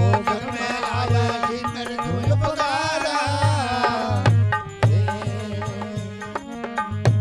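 Instrumental bhajan interlude: a hand drum keeps a steady beat of deep bass strokes under a melody line that bends and slides in pitch.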